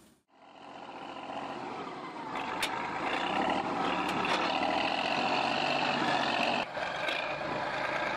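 Heavy vehicle engine running steadily under load, with scattered short knocks and clanks over it. It comes in from near silence just after the start and dips briefly about two-thirds of the way through.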